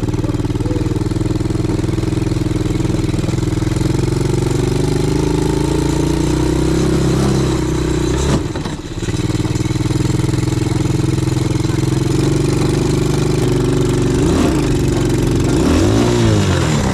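ATV engine running steadily under throttle, cutting back briefly about eight seconds in, then revving up and down in pitch twice near the end.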